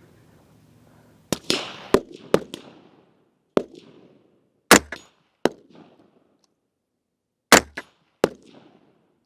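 Rifle shots: about eight sharp reports fired at uneven intervals, singly and in quick pairs, each followed by a short echoing tail.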